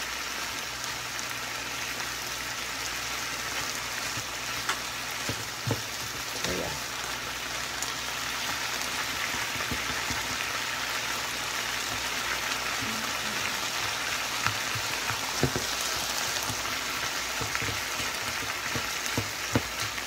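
Chicken, green peppers and onions sizzling steadily in a nonstick frying pan as they are stirred with a plastic slotted spatula. A few short clicks of the spatula against the pan come about five and six seconds in and again near the end.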